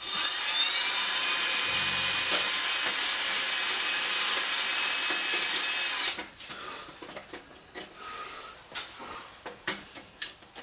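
Electric drill spinning up and boring into a rusted iron plug in an old drain cleanout, running steadily for about six seconds and then stopping. Scattered clicks and scrapes follow.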